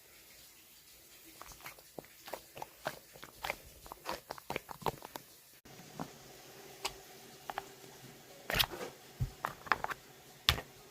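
Irregular clicks and crinkles of things being handled, with no speech.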